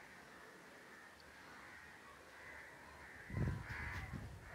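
Crows cawing repeatedly in the background. About three seconds in, a louder low rumble hits the microphone for about a second.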